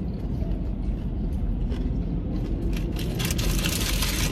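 Low steady rumble of a car cabin, with a paper food wrapper crackling and rustling, louder from about three seconds in.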